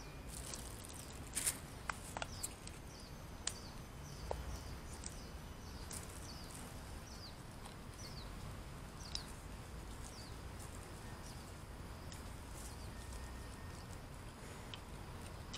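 Outdoor ambience: small birds giving short, high, downward-sliding chirps now and then over a steady low background rumble, with a few sharp clicks about two seconds in.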